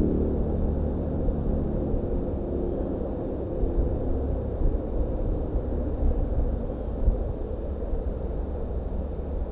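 Low, steady rumble of wind buffeting the microphone, with small uneven gusts.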